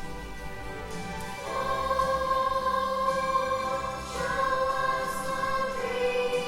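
Choral music with long held notes, growing louder about a second and a half in.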